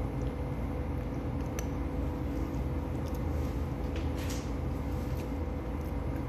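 Steady low hum and rumble of machinery or ventilation in a small room, with a couple of faint clicks.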